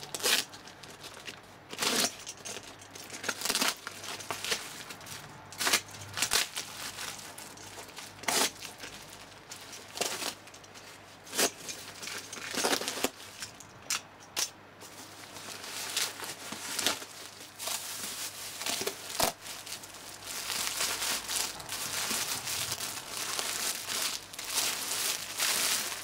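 A parcel being unboxed: a plastic mailing bag and packing tape ripped open in repeated sharp tears, then a denser, continuous crinkling of plastic and cardboard as the box and the plastic-wrapped fabric are pulled out.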